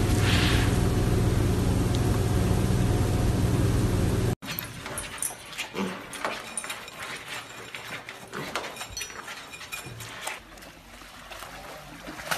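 For about four seconds, a loud steady hum, then it cuts off abruptly. Two mini pigs then eat from a bowl: quick wet chewing and crunching clicks, with small animal noises.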